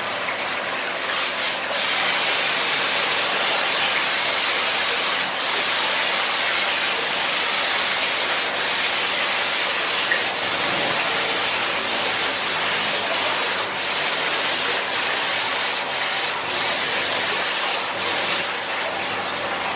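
Compressed-air gravity-feed spray gun hissing steadily as it sprays paint onto a motorcycle fuel tank. The hiss strengthens about a second in and eases near the end.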